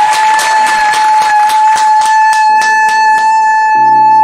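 Fast, even hand clapping, about four claps a second, over a long held high note. Music with low chords comes in about halfway through.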